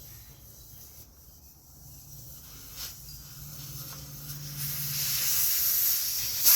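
Air hissing out of a dirt bike tire's inner tube through the open valve stem, the valve core removed to deflate it. The hiss swells from about halfway through and grows loud, after a single faint click.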